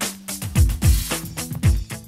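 Outro music with a funky drum beat and bass line, deep kick drum hits a few times a second.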